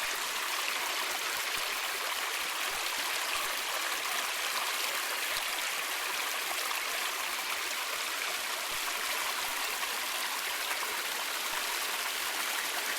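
A mountain stream running over rocks, a steady rush and babble of spring meltwater.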